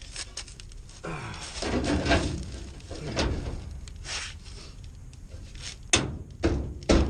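A new sheet-metal rocker panel being offered up and pushed into place on the truck's body: metal scraping and rubbing, then several sharp clunks near the end.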